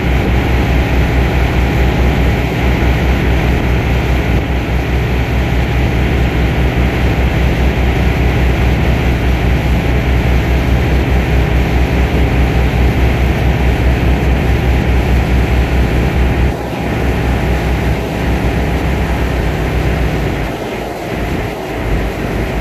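Pilot boat's diesel engine running steadily, a loud low hum with a fast, even pulse, heard beside its engine-room ventilation grille, with a rushing noise over it. The engine sound drops about 16 seconds in, and its low hum fades away near the end.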